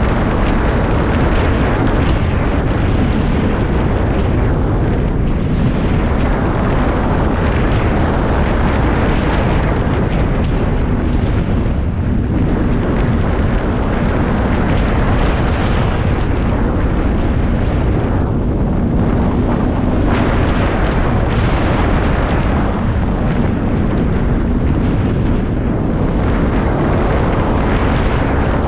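Snowmobile running at a steady cruising speed, its engine hum largely buried under heavy wind buffeting on the microphone.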